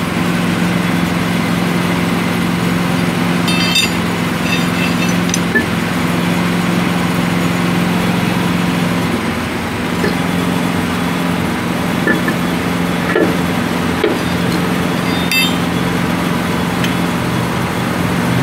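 An engine idling with a steady low hum. A handful of short metallic clinks come and go as the lug wrench and wheel nuts are handled on a truck wheel during a tyre change.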